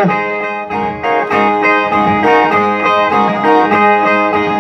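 Brazilian repentista's steel-strung viola playing an instrumental rojão interlude between sung stanzas: a quick, rhythmic run of plucked notes.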